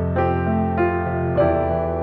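Background piano music, gentle, with a new note or chord sounding about every half second.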